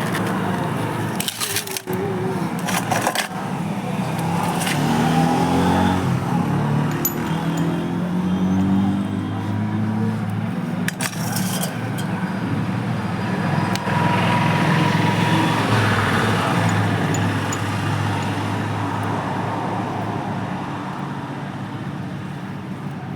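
Passion Pro motorcycle's single-cylinder four-stroke engine running, revved up and down about 4 to 10 seconds in and then holding a steadier speed. A few sharp metallic clicks come early on and again near the middle.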